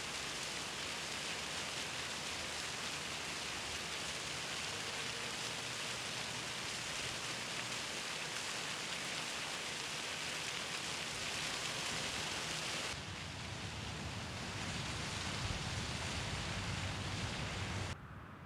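Steady hiss-like background ambience with no clear single source. About thirteen seconds in it cuts to a darker ambience with more low rumble, and near the end the level drops abruptly.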